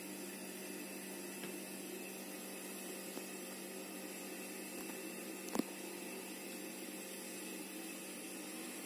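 Steady low mechanical hum with a faint hiss, and one short sharp knock a little past halfway through.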